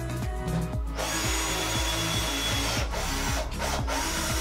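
Makita cordless drill running under load into wood, starting about a second in with a steady whine, stopping briefly near the three-second mark and starting again. Background music with a steady beat plays underneath.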